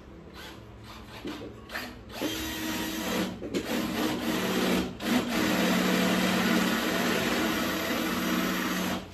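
Electric drill boring into a wall: a few short bursts, then a steady run of about seven seconds with two brief dips, stopping shortly before the end.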